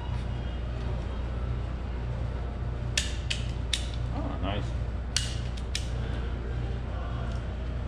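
A hand wire tool works a wire: three sharp clicks about three seconds in and three more about five seconds in, with a short creak between them, over a steady low hum.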